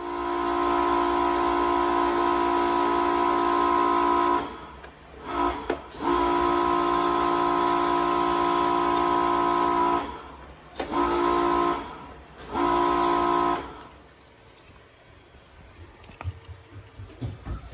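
Cleaning machine, most likely a high-pressure washer, running with a steady whine and spray hiss. It is switched on and off several times: two long runs of about four seconds, then a few short bursts, then it stops.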